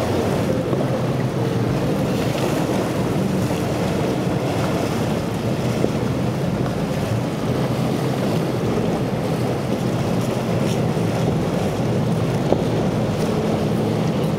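Outboard boat engines running steadily under the rush of waves and spray from the hulls, with wind on the microphone.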